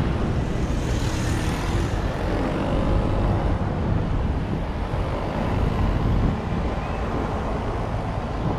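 Outdoor ambient noise: a steady low rumble throughout, with a faint hiss about a second in.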